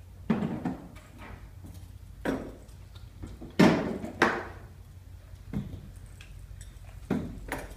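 Knocks and clatter of SCBA gear (harness buckles, straps and air cylinder) being handled and shifted inside a hard plastic carrying case: several separate knocks, the loudest about three and a half seconds in.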